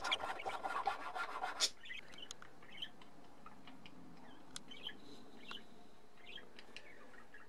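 Hand file rasping in quick strokes along the edge of a basswood bass guitar body, shaping a carved edge; it stops about a second and a half in. After that only faint scattered clicks and short chirps are heard.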